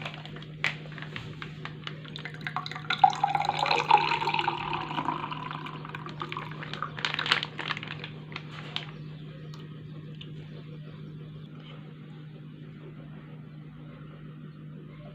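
Liquid being poured into a container, with a few sharp clinks, for the first eight or nine seconds, then a quieter steady hiss. A steady low hum runs underneath.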